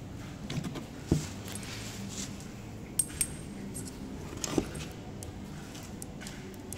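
Small metallic clicks and clinks from hands handling a Makita XGT impact driver and a hex driver bit at its chuck, with no motor running. There are a few sharp clicks, about a second in, twice near three seconds, and once more at about four and a half seconds.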